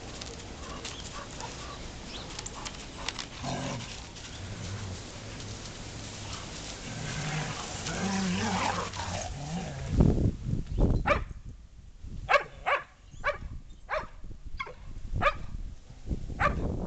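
Two dogs, a Catahoula and a Shar Pei–golden Lab mix, playing rough together, with a run of short sharp barks, about two a second, starting about ten seconds in.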